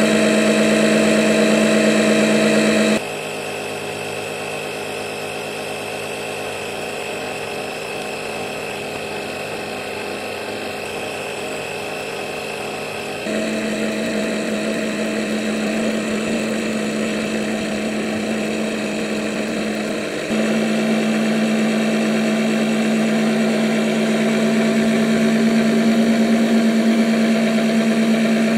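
12-volt oil extractor pump motor running with a steady buzzing hum as it sucks engine oil out through the dipstick tube. About three seconds in it abruptly drops to a quieter, lower note, then steps back up louder at about thirteen seconds and again at about twenty.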